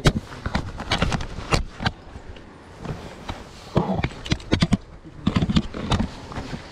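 Irregular clicks, knocks and small splashes as a landing net and hands handle a rainbow trout in shallow river water, coming in clusters near the start, in the middle and late on.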